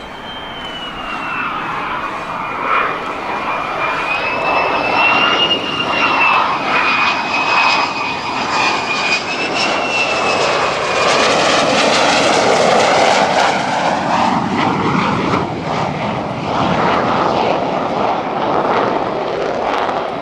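Lockheed Martin F-35A's Pratt & Whitney F135 turbofan on landing approach with gear down. A high engine whine that dips and wavers in pitch sits over a rushing jet noise. The noise grows louder to a peak about two-thirds of the way in as the jet passes, then eases slightly.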